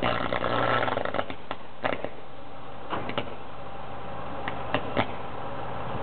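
Steady street noise with a low engine hum, broken by a scattering of short sharp clicks and knocks, several in quick succession around the middle and near the end.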